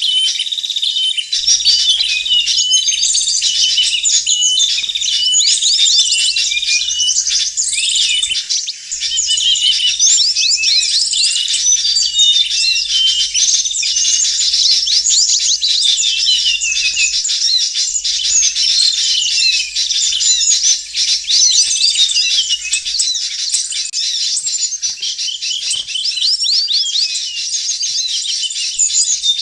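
Dense chorus of many small songbirds chirping and twittering at once, with rapid high calls overlapping without a break: a bird-lure (pikat) recording mixing the calls of several species.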